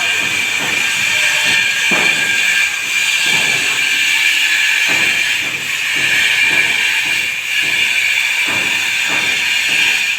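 A steady, loud hiss, with irregular short slaps and scrapes about once a second from plastering work on a brick wall.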